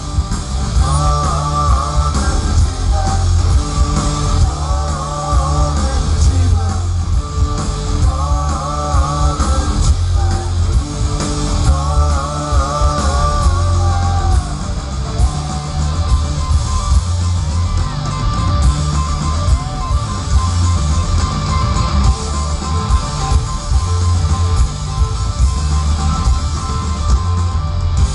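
Indie rock band playing live through a festival PA, heard from within the crowd: guitars, bass and drums with a wavering melody line that comes and goes, the bass heavy and loud.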